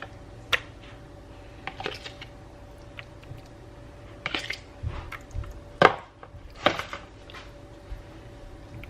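Kitchen clatter of utensils and dishes: scattered knocks and taps, the loudest a little under six seconds in, over a faint steady hum.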